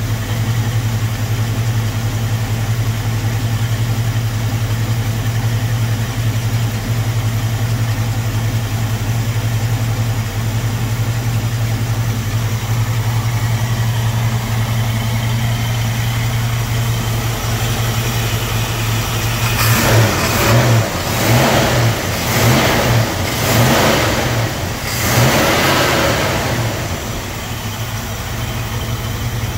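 Pontiac 326 V8 with a four-barrel carburettor idling steadily. From about two-thirds of the way in, the throttle is blipped quickly five or six times, each a short rev, before the engine settles back to idle.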